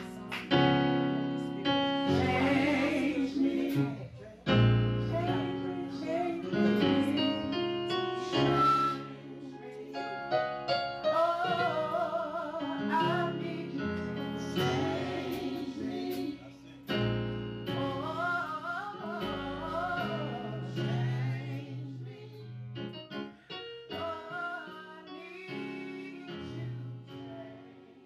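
Gospel-style music: a singing voice with a wide vibrato over piano chords, fading out over the last few seconds.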